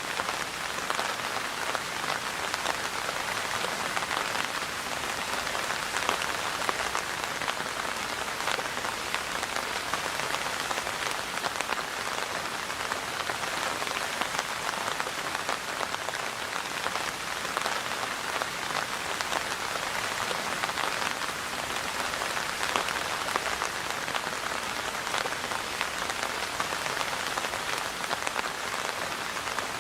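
Steady rain falling, a dense even patter of drops hitting a surface.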